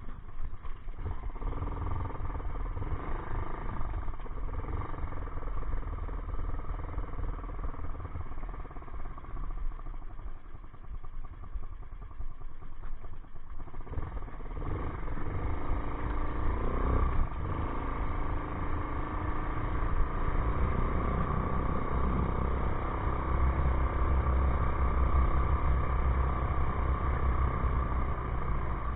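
ATV engine running under way as it is ridden, with a rough low rumble. Its pitch rises and falls with the throttle a little past the middle.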